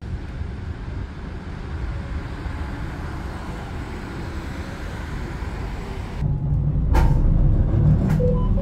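Steady rumble and hiss of a vehicle in motion. About six seconds in the sound changes abruptly to a louder, deeper rumble, with two sharp knocks soon after.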